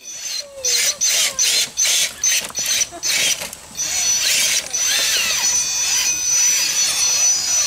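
Electric motor and geartrain of an RC rock crawler whining under throttle as it climbs over rocks. It comes in short bursts, about three a second, then runs more steadily from about four seconds in, with a high steady tone and a pitch that wavers with speed.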